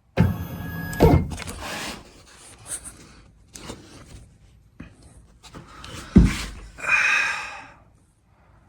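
Handling sounds at a CNC router as a dust shoe is fitted. A short whirring burst comes in the first second, then knocks and clunks of parts, a heavy thump about six seconds in and a brief rustle after it.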